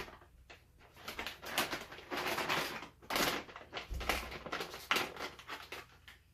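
A crinkly snack-chip bag rustling in irregular bursts as it is handled and opened.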